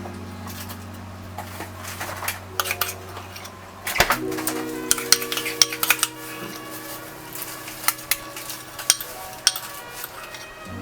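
Metal utensil clinking and tapping against dishware in irregular sharp clicks, during cooking.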